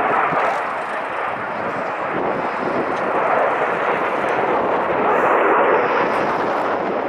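Jet noise from a Lockheed Martin F-22 Raptor's twin turbofan engines as the fighter flies its display, a loud steady rush that eases slightly about a second in and builds again.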